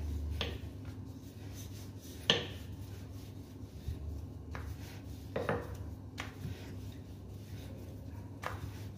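Rolling pin working a folded paratha on a marble slab: scattered knocks and clicks as the pin is rolled and set down and the dough is handled, the sharpest about two seconds in. A steady low hum lies underneath.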